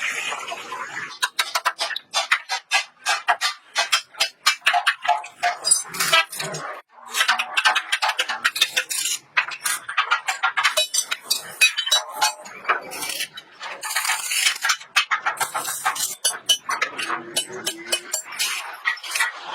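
Rapid metallic tapping and clanking, many sharp knocks a second with a short pause about seven seconds in, as of sheet metal being hammered and worked by hand.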